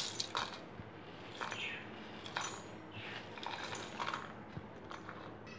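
Dry-roasted whole spices (seeds, peppercorns, dried red chillies, cinnamon sticks) being pushed off a plate into a stainless steel mixer-grinder jar, rattling and clinking against the metal in several short bursts.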